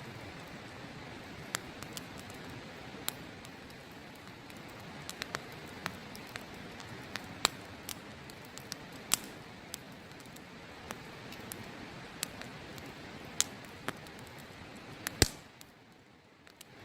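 Wood campfire crackling, with irregular sharp pops and snaps over a steady rush of river water. One loud snap comes near the end, and then the background drops away for about a second.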